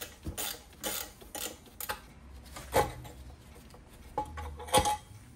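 Steel hand tools clinking and scraping against a turbocharger's wastegate actuator and housing as the actuator is worked loose. A quick run of light metal clicks comes first, then two louder metallic knocks, one near the middle and one near the end, the last ringing briefly.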